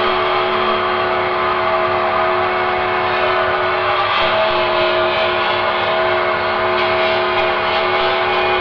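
Dark ambient music: a dense, steady drone of held tones under a wash of noise, with no beat and no break.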